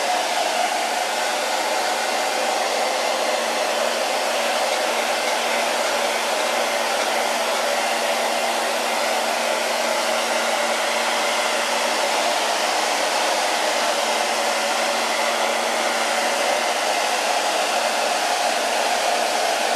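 Handheld blow dryer running steadily, a continuous rush of air with a steady hum underneath, blowing on freshly painted wood to dry the paint.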